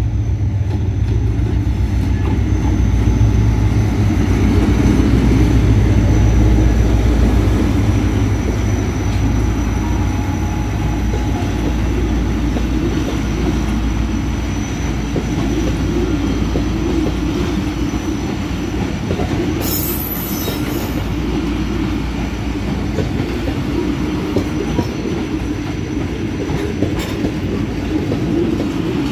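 Pakistan Railways HGMU-30 diesel-electric locomotive passing close by, its engine rumbling loudest about six seconds in. Passenger coaches then roll past with a steady clatter of wheels on the rails, and a short high-pitched screech comes about twenty seconds in.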